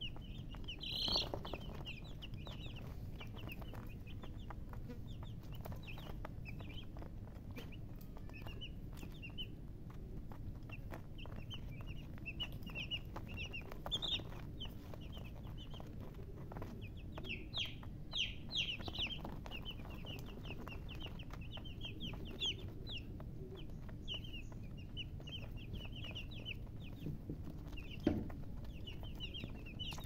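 A flock of young chicks peeping without pause: many short, high, falling cheeps overlapping, over a low steady rumble, with one sharp knock near the end.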